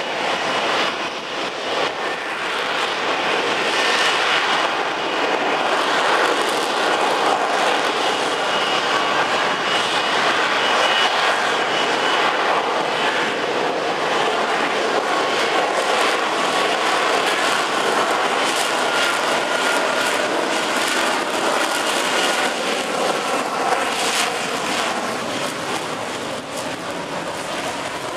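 F-35B fighter jet hovering, its jet engine and lift fan running in a steady loud roar with a high whine over it.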